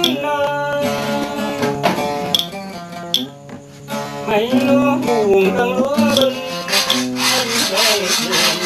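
Acoustic guitar, plucked, accompanying a singing voice that slides and wavers between notes. There is a short break in the music about three seconds in.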